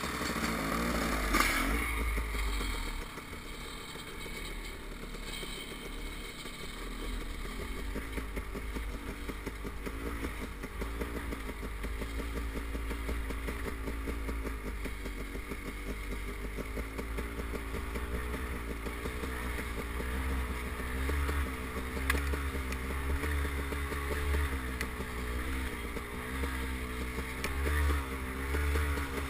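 KTM 250 XC-W two-stroke single-cylinder dirt bike engine heard on board while riding down a dirt trail, its revs wavering up and down at low engine speed. It is louder for the first two seconds, then settles lower.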